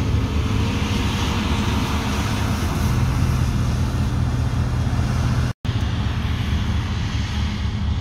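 Diesel engines of a tractor pulling a grain cart and a New Holland CR combine harvesting soybeans, making a steady low drone with a noisy mechanical rush over it. The sound cuts out completely for a split second about two-thirds of the way in.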